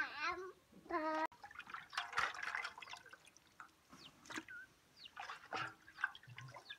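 Water splashing and dripping as raw chicken pieces are rinsed by hand in a basin of water and dropped into a cooking pot. Two short high-pitched calls sound in the first second and a half.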